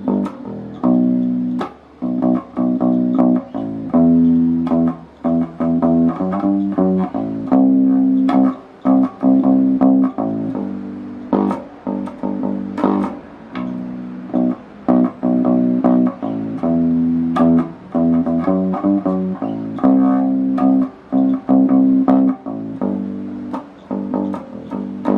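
Electric bass guitar played through an Epiphone Studio 15B bass amp, a busy line of plucked notes with sharp attacks. The amp is set with the master at 8 and the high-mid, low-mid and high EQ at 7.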